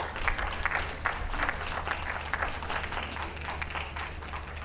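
Audience applauding, a dense patter of many hand claps, with a steady low hum underneath.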